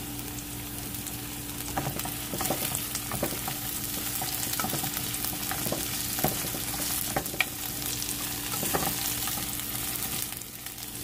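Spice aromatics, including lemongrass, galangal and bay leaves, sizzling in hot oil in a non-stick wok, sautéed until fragrant. The steady sizzle is broken by irregular scrapes and knocks as a plastic spatula stirs them.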